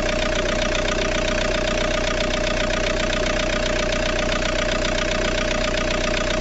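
Ford Mondeo Mk3 engine idling steadily, with a steady whining tone over the running sound.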